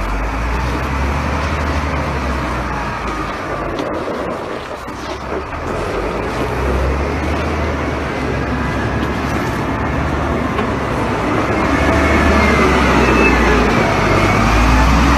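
Diesel engine of a wheel loader running with a steady low rumble, getting louder near the end as the loader comes close.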